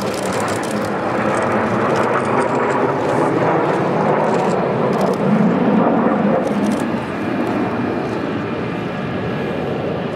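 Jet engine noise from a Blue Impulse formation of Kawasaki T-4 jet trainers flying overhead. It is steady, swells to its loudest a little past the middle, then eases slightly.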